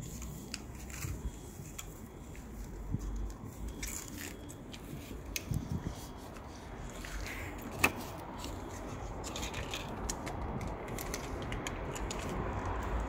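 Faint rustling and scattered light clicks of a hand stroking a cat and handling a thin plastic plate, with one sharp click about eight seconds in, over a low rumble.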